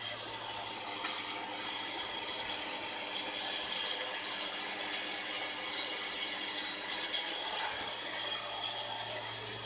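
Angle grinder with a 100 mm carbide-tipped circular saw blade, mounted on a CNC router, running steadily as it cuts lengthwise through aluminium plate under a mist coolant spray, with a steady hiss and a constant low hum, heard through the machine's closed enclosure.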